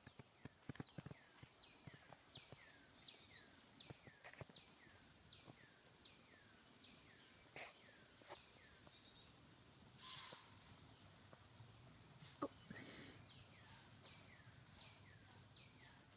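Faint outdoor night-time-style chorus: insects droning on one steady high note while a bird repeats a short falling chirp about twice a second, in runs. Twice, about ten and thirteen seconds in, a brief breathy rush of noise cuts through.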